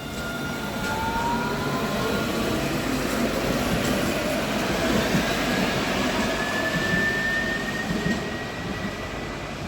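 A passenger train running through the station, a steady rumble and rush of wheels and engine. A thin whine rises slowly in pitch over several seconds.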